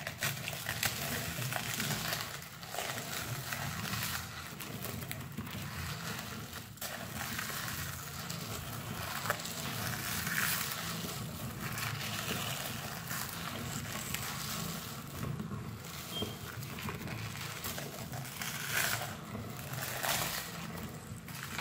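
Meat grinder running, its auger crushing crumbly Şirinkos snack and pressing it out through the holes of the cutting plate.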